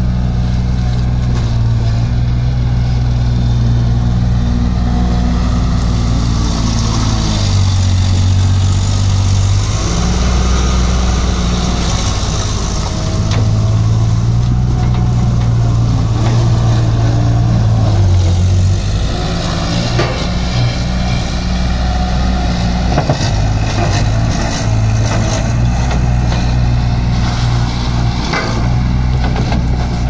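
Bobcat 643 skid steer loader's diesel engine running as the machine drives and turns, its engine speed rising and falling several times. A few knocks and rattles come in the second half.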